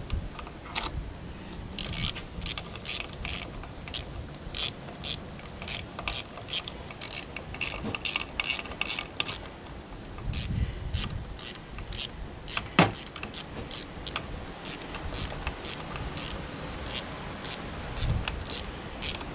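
Steady run of small sharp metallic clicks, about two or three a second, from hand tools being worked on an outboard's lower unit, with one louder knock partway through.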